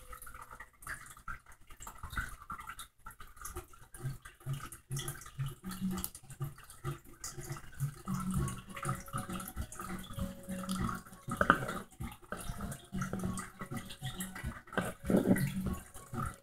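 Blue-tongued skink eating scrambled egg close to the microphone: irregular wet clicks and smacks as it bites, chews and laps the food.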